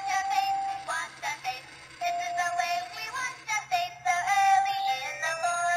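Toy ATM coin bank playing its built-in electronic song, a tinny melody with a synthesized singing voice, as it accepts a deposited bill.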